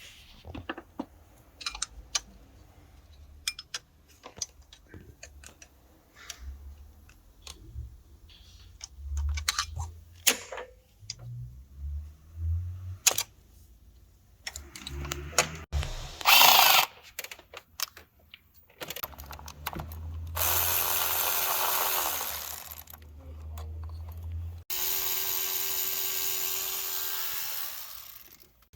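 Scattered clicks and knocks of tool work, then a power tool run twice in long steady bursts of about four seconds each near the end, with a steady whine over a dense hiss.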